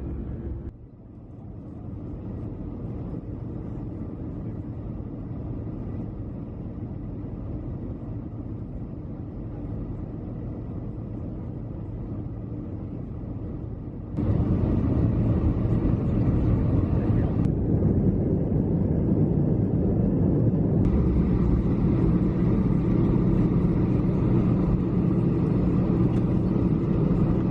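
Steady low rumble of an airliner's cabin noise in flight, with no tones or rhythm in it. About fourteen seconds in it cuts abruptly to a louder rumble that then holds steady.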